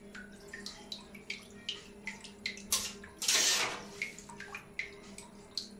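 Bathtub water lapping and dripping as a soft plastic swimbait is pulled through it on a fishing line, with scattered small ticks and one louder swishing splash about three seconds in. A faint steady hum runs underneath.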